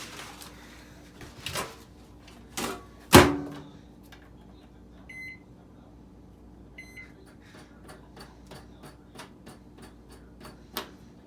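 Microwave oven being loaded and started: knocks and a loud bang about three seconds in as the door shuts, two short keypad beeps, then the oven runs with a steady low hum and a regular clicking of about three a second.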